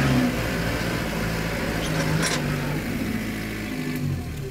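Kubota compact tractor's diesel engine running while the tractor is driven, its pitch shifting slightly a couple of times.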